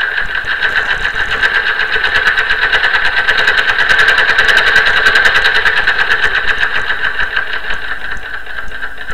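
Sewing machine running at speed with a fast, even stitching rhythm, growing louder toward the middle and easing off a little near the end.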